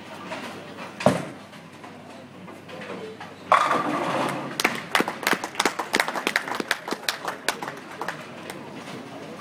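Tenpin bowling ball landing on the wooden lane with a sharp knock about a second in, rolling, then crashing into the pins about three and a half seconds in, followed by a few seconds of pins clattering and knocking together.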